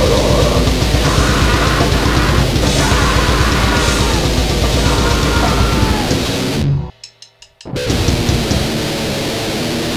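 Grindcore/noise band playing: heavily distorted guitar and drums in a dense, loud wall of noise. About seven seconds in the music cuts out for under a second, with a few quick clicks in the gap, then the band comes back in.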